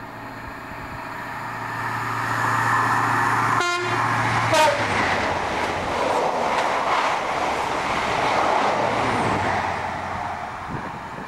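High Speed Train (InterCity 125) diesel power car running through at speed. Its engine drone grows louder as it approaches, then comes a short horn note falling in pitch about four and a half seconds in, followed by the rush of the coaches going by, which fades near the end.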